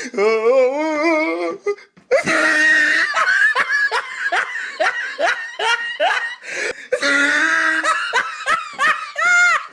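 Laugh sound effects played back to back: a short, high, warbling giggle, a brief silent gap about two seconds in, then a long hearty laugh in repeated short 'ha' pulses, about two a second.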